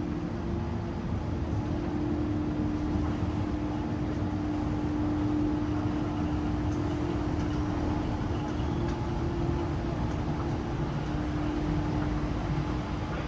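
Steady city background noise: a low rumble with a constant hum over it, with no single sound standing out.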